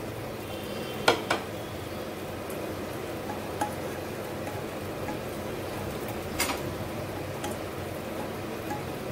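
Malpua being turned over and lifted out of sugar syrup in a saucepan with a silicone spatula: a few light knocks of the spatula on the pan, two about a second in and another around six seconds in, over a steady hiss.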